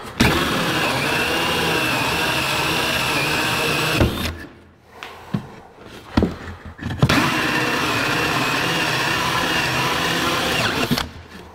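Cordless drill spinning a 1¼-inch hole saw through a pine hive shim: two steady runs of about four seconds each, with a few knocks between them.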